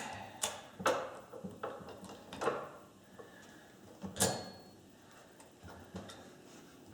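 Scattered knocks and clicks from objects being handled on a shop bench, about six in all, the loudest about four seconds in.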